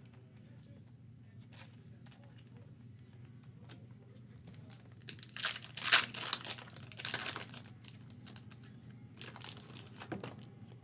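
A foil trading-card pack being torn open and its wrapper crinkled, in loud bursts about five to seven seconds in and again briefly near the end, over light handling clicks.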